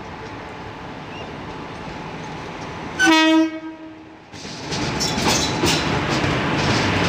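Indian Railways WAP4 electric locomotive hauling an express train. It approaches with a steady rumble and gives one short horn blast about three seconds in. From about four seconds in, a loud clatter of wheels over the crossover rises, full of sharp clicks, as the locomotive reaches and passes.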